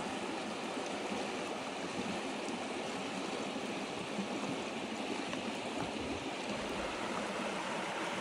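River rapids: fast water running steadily over a shallow rocky bed, an even rushing noise.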